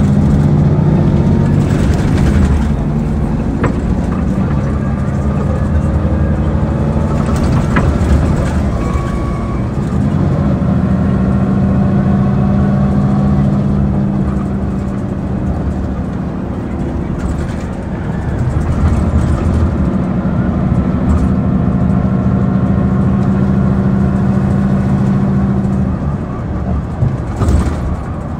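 Mercedes-Benz CapaCity articulated bus under way, its OM 457 hLA six-cylinder diesel running and changing pitch as the bus speeds up and slows, with a whine rising and falling above it from its noisy ZF Ecomat 6 HP 602 C automatic gearbox.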